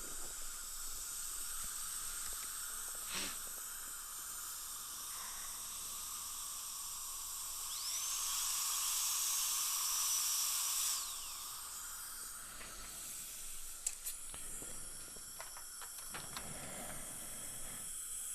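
High-speed dental air-turbine handpiece with a carbide bur, cutting through the metal of an implant crown: a steady hiss, with a high whine that rises about eight seconds in, holds for some three seconds and then falls away. A few faint clicks follow near the end.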